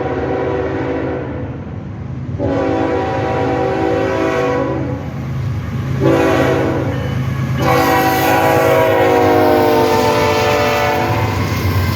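Norfolk Southern heritage locomotive's multi-chime air horn sounding a series of blasts. The last is held long and falls in pitch as the engine passes. Underneath is the low rumble of the fast-moving train.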